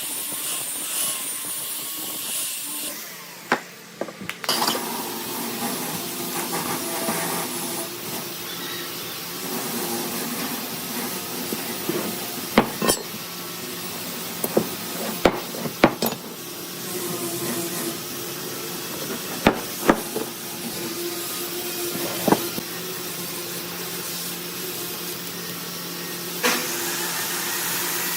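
A woodworking machine running steadily with a constant hum, and scattered sharp knocks of wood or tools, about a dozen in all.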